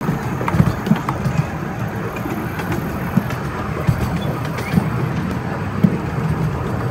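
Miniature ride-on train car rolling along its track: a steady low rumble with irregular clacks and knocks from the wheels and the car.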